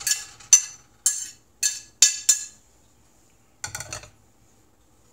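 A ceramic bowl knocked sharply six times, about every half second, with bright ringing clinks, to empty food out into a frying pan. Near the end comes a short clatter of dishware.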